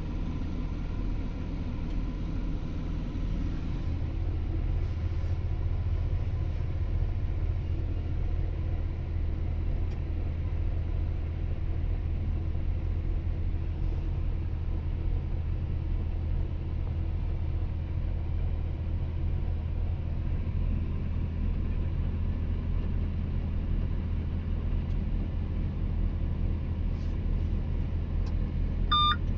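Excavator's diesel engine running steadily, a low even drone that grows a little stronger about four seconds in.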